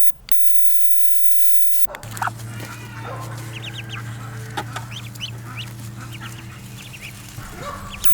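Chickens clucking, with short calls in the middle. A steady low hum starts about two seconds in and fades near the end.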